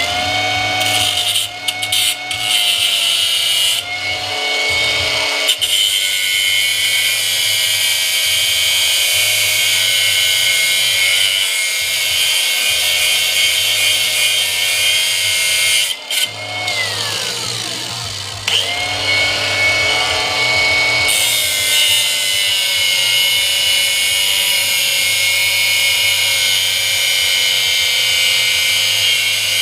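Electric grinding tool spinning up with a rising whine, then running with a steady high whine as it grinds into the metal casing of an electric door strike. About 16 seconds in it winds down, then it spins up again and carries on grinding.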